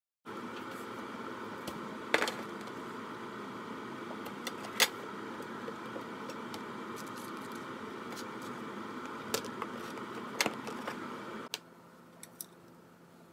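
Steady kitchen background hum with a few sharp clinks of stainless-steel containers and a metal tray being set down on the countertop. The hum drops away suddenly near the end.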